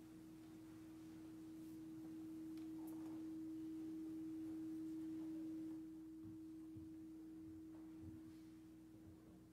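A single steady, pure tone, swelling slowly for about six seconds, then dropping suddenly and lingering more faintly, with a few faint low knocks near the end.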